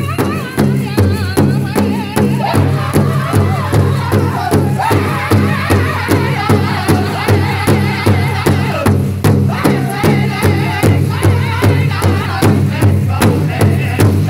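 Powwow drum group performing an intertribal song: several drummers strike one large shared powwow drum together in a steady, even beat while the men sing high in unison over it.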